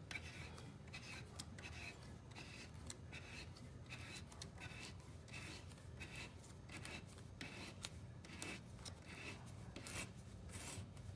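Threaded metal fitting being screwed by hand into a drilled hole in a wooden wall stud: faint, repeated short scrapes as the threads bite into the wood.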